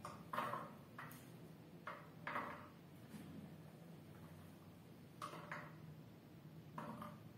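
Faint light taps and clinks of small pieces being set down on a stainless steel plate, in small clusters with pauses between.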